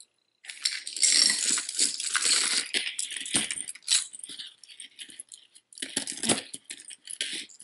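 Metal chain necklaces and pendants jangling and clinking as they are picked up and handled, with a couple of sharper clacks partway through.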